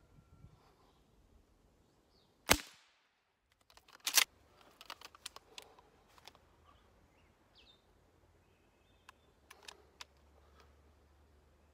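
Shotgun firing: one sharp shot about two and a half seconds in with a short echo, then another sharp double crack about a second and a half later. A run of lighter metallic clicks and knocks follows, and a few more come near the end.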